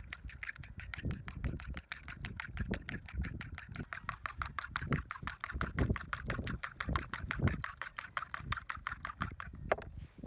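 Wind buffeting the microphone in uneven gusts, with a fast, even clicking of about eight to ten strokes a second over it that stops just before the end.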